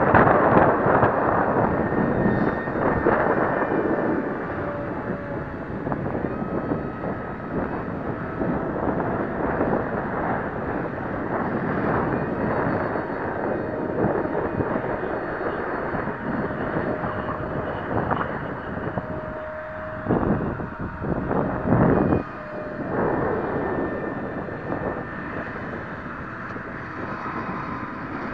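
Wind buffeting the microphone, strongest at the start and in two gusts about two-thirds of the way through. Under it, the faint whine of a small electric RC plane's motor and propeller, shifting in pitch.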